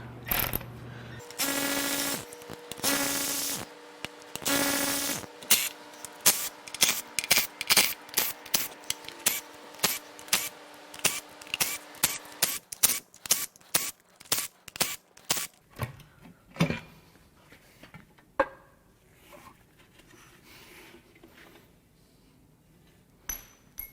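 Power tool whirring in three short bursts while the oil pan bolts come off the BMW S52 engine, followed by a long run of quick clicks and knocks from the bolts and the pan being worked loose.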